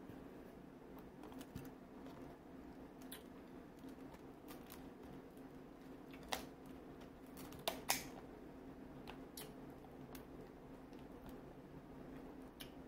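Kitchen scissors snipping through king crab leg shell: scattered sharp clicks and cracks, the loudest a few about six to eight seconds in, over a faint steady hum.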